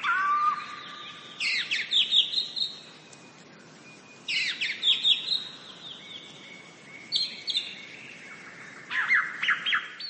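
Small birds chirping in four bursts of quick, high, falling notes a few seconds apart, over a faint steady background hiss.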